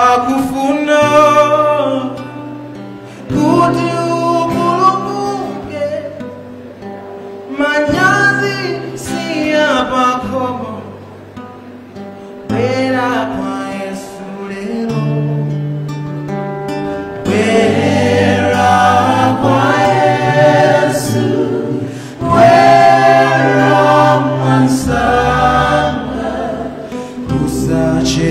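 A gospel song sung in Chichewa with acoustic guitar accompaniment, in phrases of a few seconds each.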